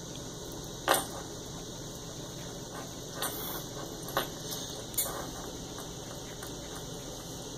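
A few light metallic clinks at the table, four in all, the first about a second in being the loudest, over a steady room hum.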